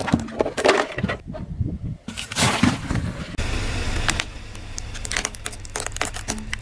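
A car tyre rolling over and crushing things: a drink carton crinkling and crunching, then, after a cut, a plastic handheld game cracking with several sharp snaps near the end over a low steady engine hum.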